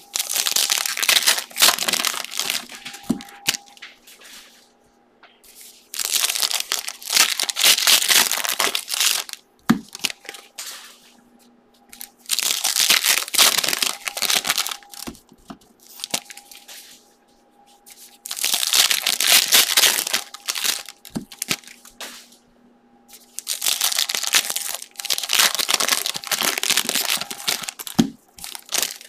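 Foil trading-card pack wrappers being torn open and crinkled by hand, one pack after another. There are five bursts of rustling and tearing, each a few seconds long, separated by short pauses.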